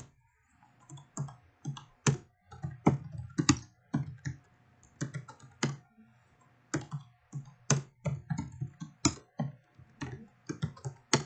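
Typing on a computer keyboard: irregular runs of keystroke clicks separated by short pauses.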